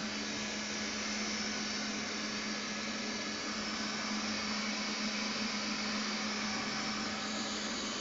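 Xiaomi Mi Robot Vacuum (first generation) running as it cleans a hard wooden floor: a steady whirring of its suction fan and brushes, with a constant low hum underneath.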